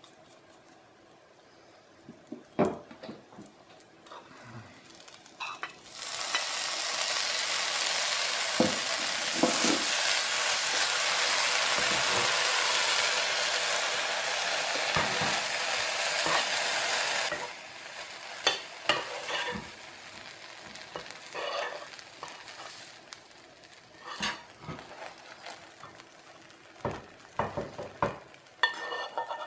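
Red sweet pepper strips frying and sizzling in hot oil in a nonstick frying pan, starting suddenly about six seconds in and cutting off sharply about eleven seconds later. Before and after the sizzle, a metal spoon knocks and scrapes against the pan.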